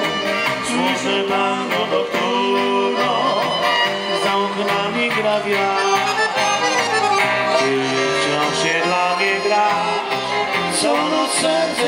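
Polish street-folk band playing an instrumental passage, with two accordions carrying the tune alongside violin and banjo.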